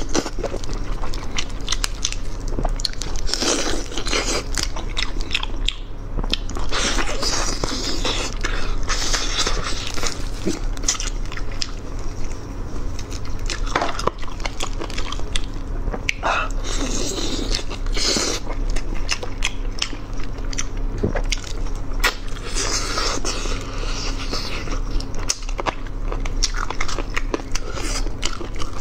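Close-miked biting and chewing of braised chicken, with crackling mouth sounds as meat is pulled from the bone with gloved hands. A steady low hum runs underneath.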